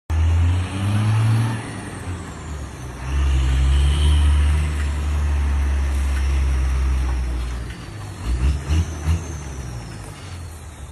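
Heavy truck's diesel engine labouring under a heavy load on an uphill climb, a loud low drone that swells twice. A few short loud pulses come about eight to nine seconds in, and then the engine drops to a lower level.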